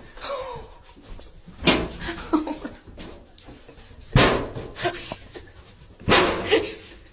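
A dog making short, loud sounds three times, about two seconds apart.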